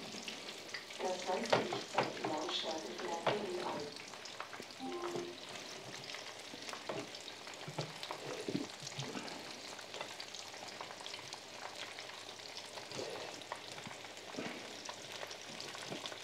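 Chicken nuggets sizzling as they shallow-fry in oil in a pan, with clicks and scrapes of a utensil turning them and lifting them out. The utensil knocks are busiest over the first few seconds.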